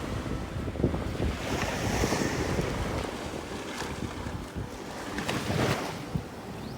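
Wind buffeting the microphone in uneven gusts, over the wash of waves breaking on a sandy beach.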